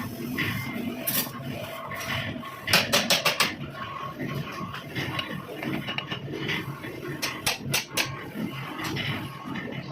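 Metal pieces clinking and clattering, with a quick run of sharp clinks about three seconds in and another run near the end, over steady workshop background noise.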